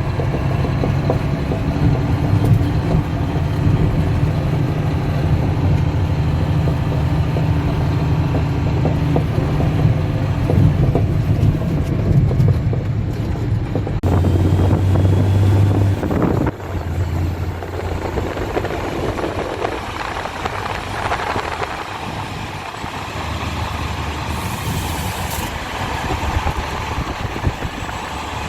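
Heavy dump truck's diesel engine running under way. Its steady low hum drops abruptly about sixteen seconds in and carries on lower and quieter.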